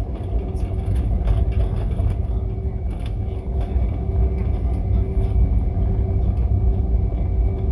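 Airbus A320-200 cabin noise while taxiing: a steady low rumble from the engines at taxi power and the wheels rolling over the taxiway, with a faint steady hum above it.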